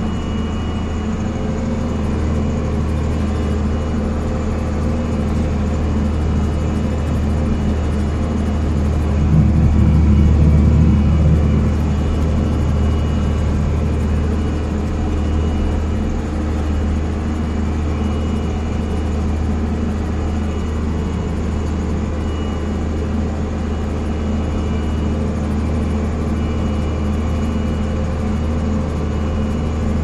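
Farm tractor's diesel engine running steadily under load, heard from inside the cab, with a low drone that swells louder about nine to twelve seconds in.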